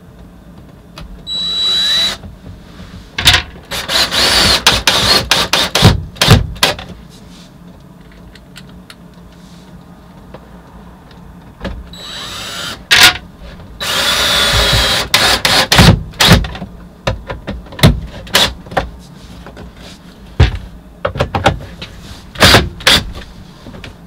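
Cordless drill driving screws into hard pallet wood. The motor runs with a high whine twice, briefly about a second and a half in and for about two seconds around fourteen seconds in, with many short trigger bursts and clicks between.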